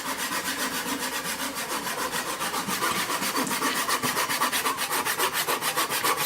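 Hand saw cutting through a log of firewood, with a steady rhythm of quick back-and-forth strokes that gets slightly louder about halfway through.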